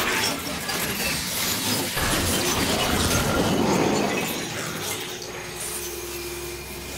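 Electronic soundtrack made of dense, noisy crackling and rushing textures. About five seconds in it thins to a quieter low hum with a single steady held tone.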